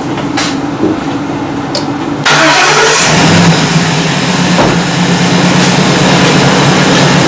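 Ford E350's 5.4-litre V8 being started: it catches about two seconds in and settles into a steady idle. The engine has a stored P0301 misfire on cylinder 1.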